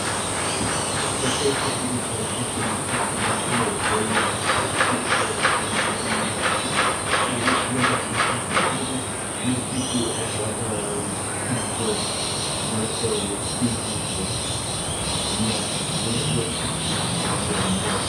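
Insects droning steadily at a high pitch. A rhythmic pulsing chirp, about two to three pulses a second, runs from a few seconds in until about halfway, with faint scattered lower sounds underneath.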